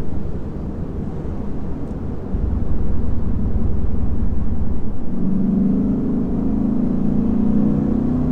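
Lexus IS500 F Sport Performance's naturally aspirated 5.0-litre V8 engine and exhaust running while driving, over a low rumble of road noise. The engine note grows stronger about five seconds in.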